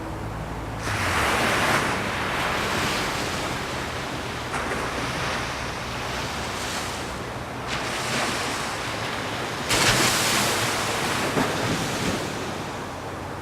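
Ocean surf: waves breaking and washing in as repeated rushing surges every few seconds, the loudest about ten seconds in.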